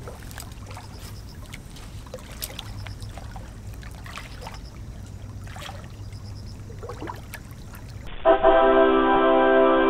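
Low, steady outdoor hum with scattered faint clicks. About eight seconds in, a louder held musical chord cuts in abruptly and becomes the loudest sound.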